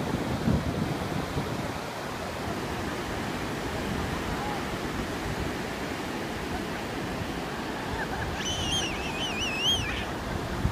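Ocean surf breaking and washing up the beach in a steady rush, with a little wind on the microphone at the start. Near the end a toddler gives a high, warbling squeal of delight lasting about a second and a half.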